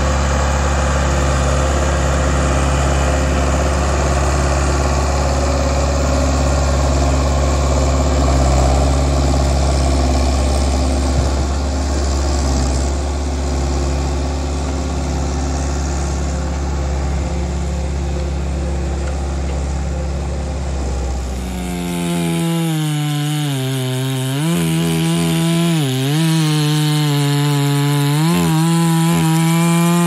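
John Deere skidder's diesel engine running with a steady low drone. About 22 seconds in it gives way to a two-stroke chainsaw bucking a pine log, its pitch dipping and recovering several times as it loads up in the cut.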